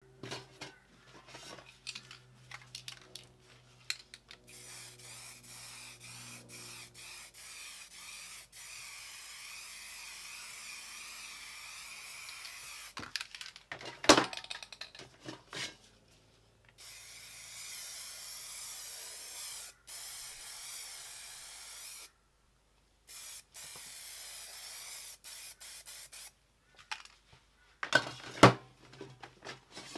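Aerosol spray paint can spraying green paint in long, steady hisses, three of them with short breaks between. Short clicks and knocks come before and between the sprays, with two loud knocks, one about halfway through and one near the end.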